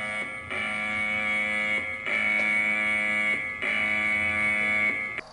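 Electronic emergency-broadcast alarm tone, a harsh buzzing note sounding in repeated blasts of about a second and a half with short breaks, three full blasts after the tail of an earlier one.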